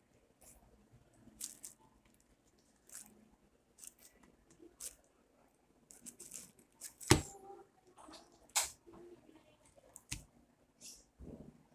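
Ripe jackfruit being pulled apart by hand: a string of short, sticky tearing and squishing crackles as the flesh and fibrous strands come away, with a louder snap a little past the middle.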